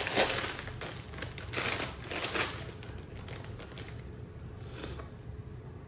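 A foil-lined potato chip bag being pulled open and crinkled in the hands: a run of crackling rustles over the first two and a half seconds, then only faint handling.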